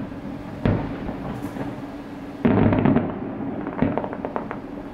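Distant aerial fireworks shells bursting: a bang about two-thirds of a second in, a louder burst about two and a half seconds in that lasts half a second, and another bang near four seconds followed by a quick run of crackles. A steady low hum runs underneath.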